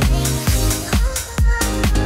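Background electronic music with a steady kick-drum beat about twice a second under held melodic notes.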